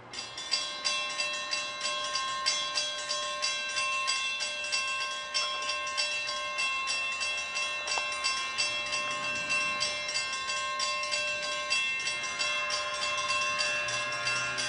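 Railroad grade-crossing warning bell that starts suddenly and rings in rapid, regular strokes, about three a second, signalling an approaching train. From about twelve seconds in, the approaching train adds a low rumble and a rising hiss under the bell.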